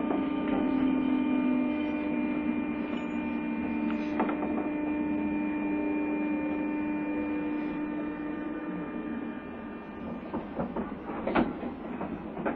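Running sound inside a JR East 201 series electric commuter train under way. A steady electric whine with several overtones sits over the rumble of the ride and fades out after about nine seconds as the sound slowly quietens. A few sharp clicks and knocks from the running gear follow near the end.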